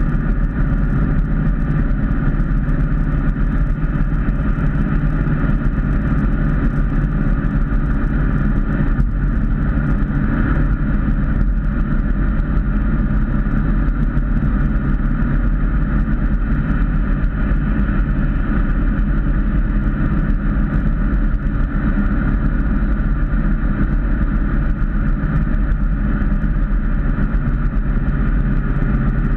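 Ford Mustang cruising at a steady highway speed, heard from inside the cabin: a steady engine drone under tyre and wind noise.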